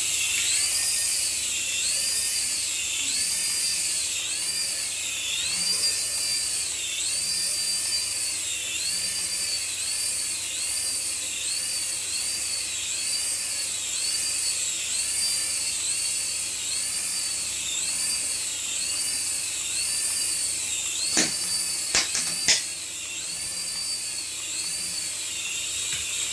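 Battery-operated toy running with a high whine that rises and falls in pitch about once a second. Three sharp clicks come near the end.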